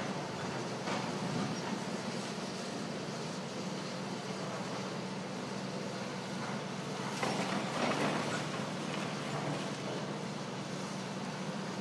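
Diesel excavator running steadily on a demolition site, its engine hum constant, growing louder for about a second around seven seconds in as the machine works.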